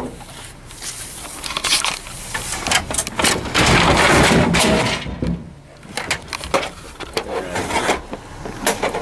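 Irregular knocking, clattering and scraping of discarded electronics being handled in a metal dumpster, with rustling handling noise on the camera.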